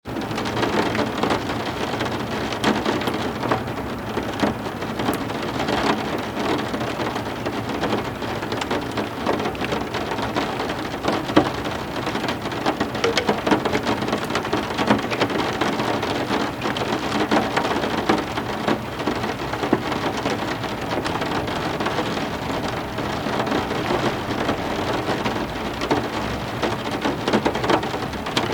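Steady heavy rain, with many individual drops striking a surface close by.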